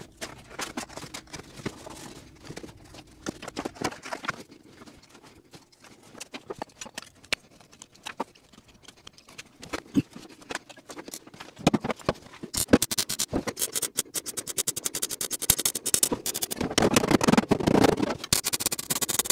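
Hand-work noises on the cab's sheet-metal floor: scattered clicks, taps and scrapes as a cardboard template and metal pieces are handled, becoming busier and denser with a hiss in the second half.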